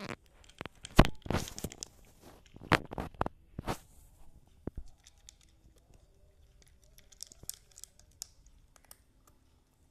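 Cat eating dry kibble from a plastic bowl: a quick run of loud crunches in the first four seconds, then quieter chewing clicks near the end.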